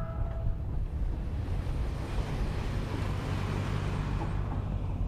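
2024 Toyota Land Cruiser driving past on a dirt trail: engine and tyres on loose dirt, the noise swelling as it passes close about two to four seconds in. Heavy wind rumble on the microphone.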